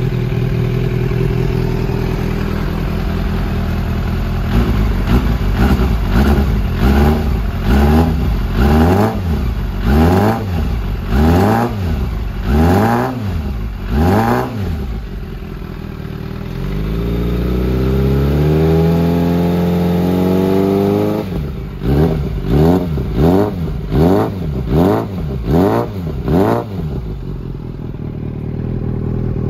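Suzuki Inazuma 400's inline-four engine breathing through a Danmoto slip-on muffler, revved while parked: it idles, then gives a run of quick throttle blips, a slower rise held at higher revs about two-thirds of the way in, another run of quick blips, and settles back to idle near the end.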